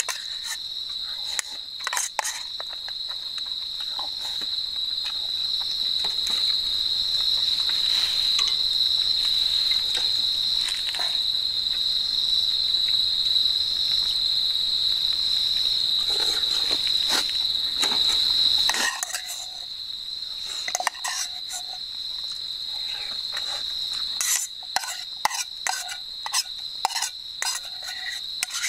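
Crickets chirring in a steady, continuous high trill, which gets quieter about two-thirds of the way through. Over it, a metal spoon scrapes and clinks against a metal camp cooking pot, the clinks coming more often near the end.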